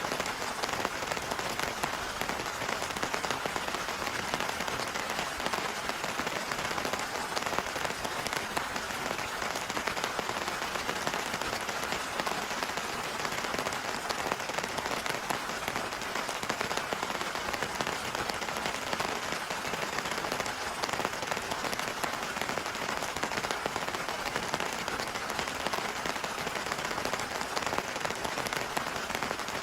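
Heavy rain falling steadily, a dense, even patter of countless drop impacts with no letup.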